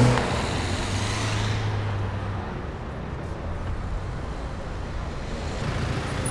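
Street traffic: a vehicle engine humming low for the first couple of seconds, then a steady wash of road noise from passing traffic.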